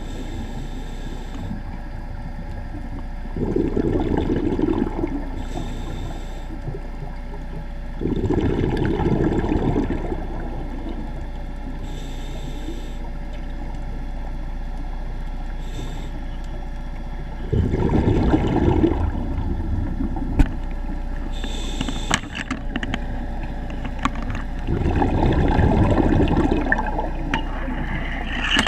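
Scuba diver breathing through a regulator underwater: a short hiss on each inhale and a rumbling burst of exhaust bubbles on each exhale, about four breaths, over a steady low hum.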